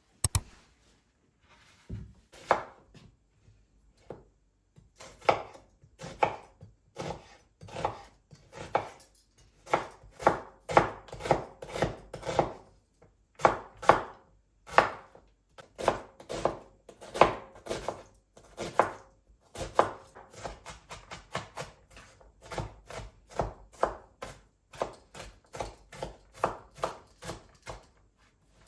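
Knife chopping on a cutting board: a long run of uneven strokes, about two to three a second, with brief pauses.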